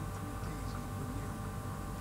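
Steady low hum and background noise, with a few thin constant tones and no clear event.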